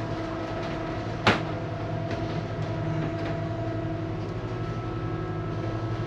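Steady drone of the catamaran's diesel engine running under way, heard from inside the cabin, with a single sharp click about a second in.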